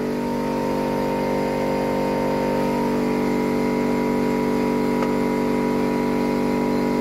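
An engine or motor running steadily, with an even hum over a fast low pulsing and a faint tick about five seconds in.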